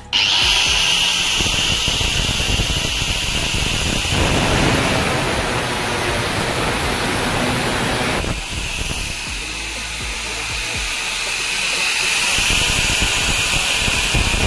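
Electric angle grinder with a thin cutting disc running loud and steady with a high whine, used to cut a steel saw blade. From about four to eight seconds in, the whine gives way to a harsher, rougher noise before returning.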